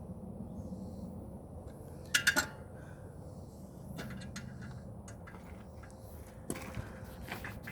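Metal-on-metal clinks: a quick run of three ringing metallic strikes about two seconds in, then scattered lighter clicks and knocks near the end.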